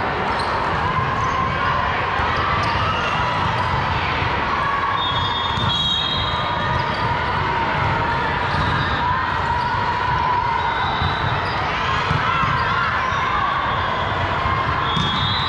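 Echoing gym din around a volleyball match: volleyballs being hit and bouncing, sneakers squeaking several times, and a murmur of voices.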